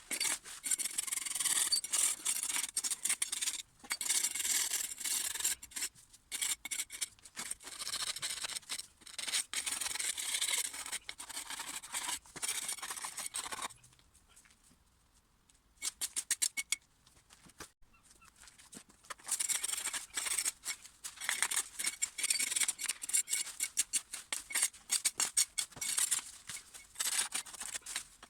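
Weeding by hand: repeated scraping and rustling strokes in long runs, with a short quieter break around the middle broken by a few sharp clicks.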